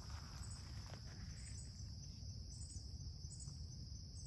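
Faint insect chorus: a steady high-pitched trill, with a second, higher trill pulsing on and off, over a faint low rumble.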